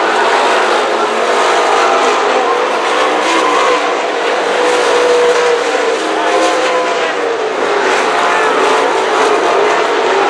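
Dirt late model race cars running at speed on a dirt oval, several V8 engines at high revs whose pitch rises and falls as the cars work through the turns.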